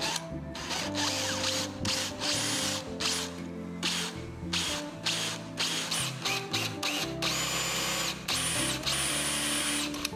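Power drill with a Forstner bit boring shallow holes into the edge of 9 mm plywood, in a series of short bursts and then a longer run near the end, with a high whine from the motor.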